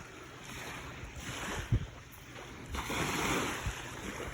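Seaside wind and surf noise, swelling and easing, louder in the last second or so, with a soft low thump just under two seconds in.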